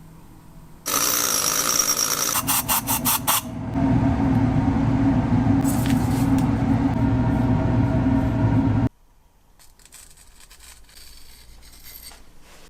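Stone grinder working: a harsh scraping rasp, then a steady low grinding drone that cuts off suddenly about nine seconds in.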